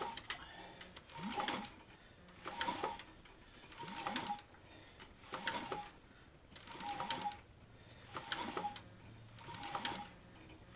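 Rebuilt Mazda 3.0L V6 being turned over slowly by hand: a short mechanical squeak rising in pitch, with a click, repeats about every second and a half, eight times, as the crank comes around. Oil has reached the valve train and it is now lubricated.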